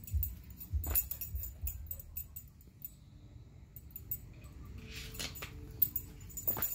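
A husky's metal chain collar jingling and clinking in short rattles as the dog moves about and rises on its hind legs at bubbles, with a few dull low knocks in the first couple of seconds.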